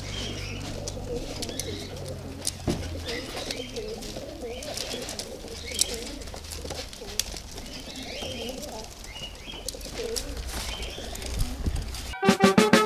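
Racing pigeons cooing over and over inside their loft, with a few sharp knocks. Music cuts in near the end.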